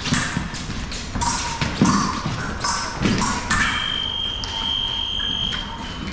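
Fencers' feet thudding and tapping on the piste in quick footwork and lunges during a sabre bout, then about three and a half seconds in, a steady high electronic beep lasting about two seconds: the scoring machine signalling a touch.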